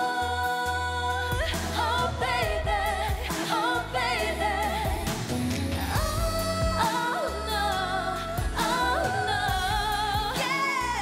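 Female voices singing a K-pop song live over a backing track, the lead voice holding notes with vibrato over a steady bass line.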